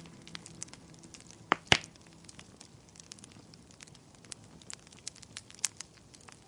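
Wood fire crackling in a fireplace: scattered sharp snaps and pops, with two loud pops close together about one and a half seconds in. Soft music fades out during the first second or so.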